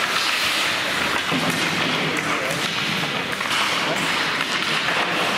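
Crowd of spectators chattering at a game, with a few dull thuds and taps.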